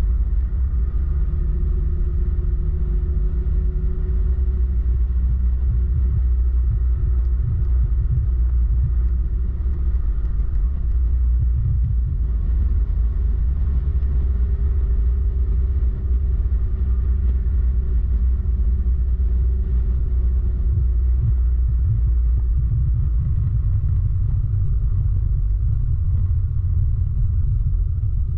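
Motorcycle riding sound heard from on the bike: the engine running at road speed under a heavy, steady wind rumble on the microphone, its pitch slowly rising and falling with the throttle.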